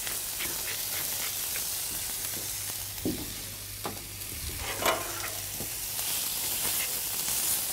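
Orange-glazed quail breast fillets sizzling in a hot pan on a barbecue grill: a steady frying hiss, with a couple of brief clicks about three and five seconds in.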